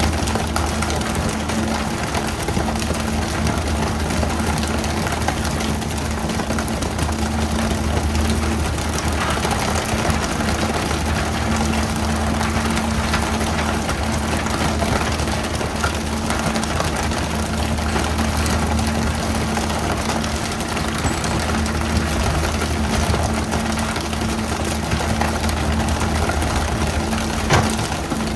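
Fishing boat's engine running steadily, a low constant drone over a steady rushing hiss, with one sharp knock near the end.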